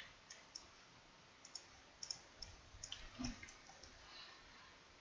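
Computer mouse clicking: a scattering of faint, irregular clicks over a near-silent room, with one soft low thump a little past three seconds in.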